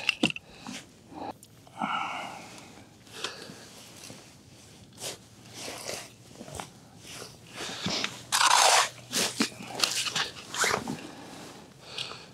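Crunching of slush and broken ice in an ice-fishing hole, worked by a gloved hand, with light clicks from handling the tip-up gear. The crunches come irregularly, the longest and loudest about eight seconds in.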